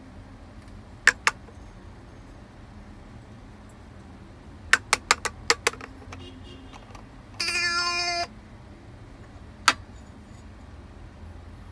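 Plastic clicks of shape-sorter pieces being handled and dropped in: two near the start, a quick run of about five midway, and one more near the end. Between them, the toy plays a short electronic sound effect at a steady pitch for just under a second.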